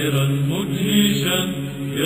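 Byzantine choir chanting a Nativity hymn in Arabic, the melody moving over a steady low held drone note.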